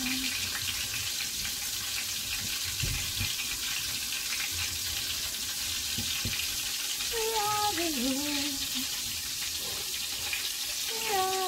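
Chicken frying in a large pot of hot oil: a steady sizzle with fine crackling. A voice sings a few short phrases about seven seconds in and again near the end.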